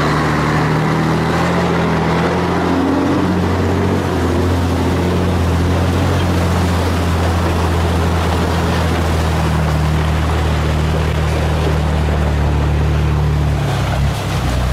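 Diesel engine of a loaded logging truck running steadily under load, over a steady rushing noise; the engine note drops away near the end.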